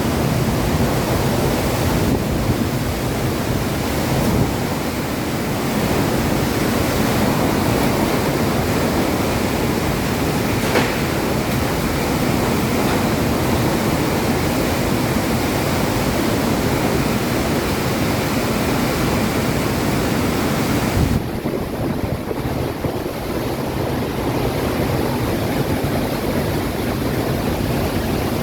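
Heavy rainstorm with strong wind: a steady, loud rush of rain and gusts buffeting the microphone. The high hiss eases a little about twenty seconds in.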